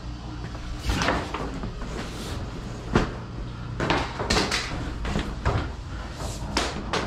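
Irregular sharp knocks and clatters, about eight of them, over the steady low hum of a running high-pressure sewer jetter.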